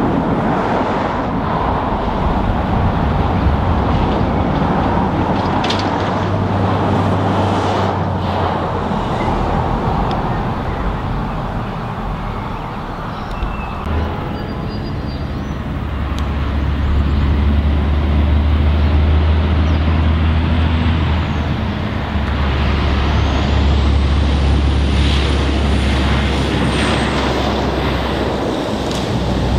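A diesel-electric freight locomotive's engine runs at low power, then its drone grows louder and deeper about halfway through as it powers up and starts to pull its train forward. A faint high whine rises and falls near the end.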